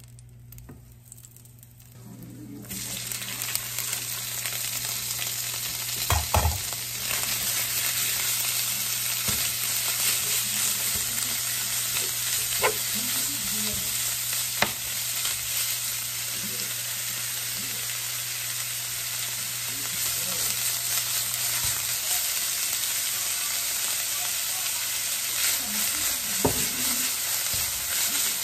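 Hot oil sizzling loudly in a nonstick frying pan from about two seconds in, as shredded pickled Chinese cabbage (suan cai) is stir-fried in it. A wooden spatula stirs and scrapes it, knocking against the pan a few times.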